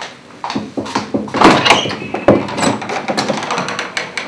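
A run of sharp knocks and clicks as a wooden door is unlocked and opened.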